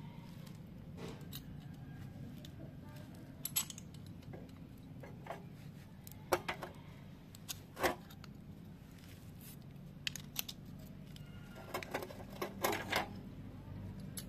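Small metal parts and tools being handled: scattered light metallic clicks and clinks, several close together near the end, over a low steady hum.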